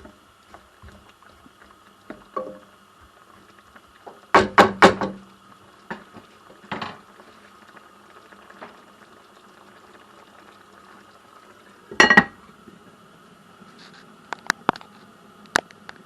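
Kitchen utensils and dishes clattering: three quick knocks about four seconds in, another clatter about twelve seconds in and a few light clicks near the end, over a faint steady hum.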